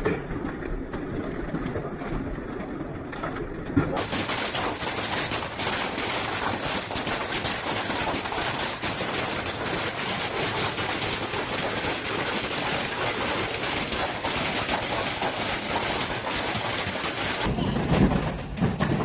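Hailstones pelting down in a severe storm: a dense, continuous clatter of rapid impacts, with a change of recording about 4 seconds in and again near the end.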